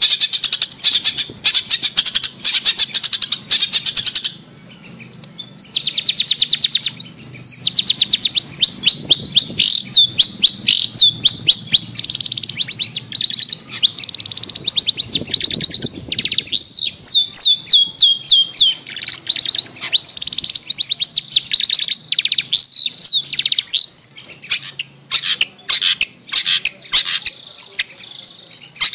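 Long-tailed shrike (cendet) song: long, fast series of short, harsh chattering notes, with runs of quick sweeping notes in the middle. There is a brief pause about four seconds in, and the singing thins out near the end.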